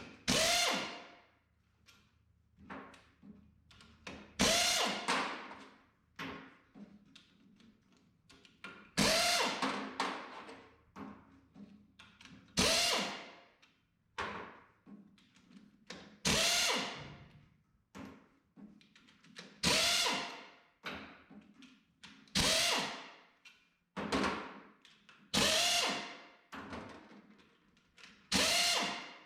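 Hammer blows on the metal touch control housing, about nine single strikes three to four seconds apart, each ringing and dying away: the back cover being knocked loose.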